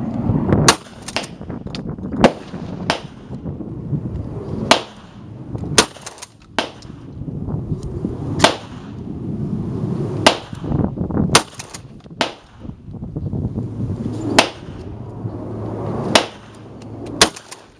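A string of shotgun shots, irregularly spaced every second or two, some louder and sharper than others.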